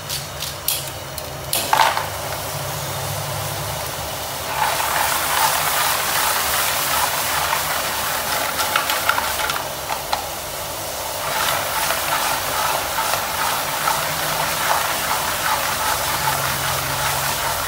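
Shellfish sizzling and crackling as they are stir-fried in a hot pan, with wooden chopsticks clicking and scraping against the pan. A few sharp clicks come near the start as the shells go into the pan, then a dense sizzle sets in that eases briefly about ten seconds in and returns.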